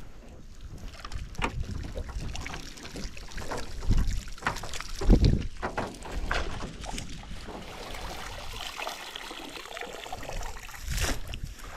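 Water splashing and dripping, with irregular knocks and two heavier thumps about four and five seconds in.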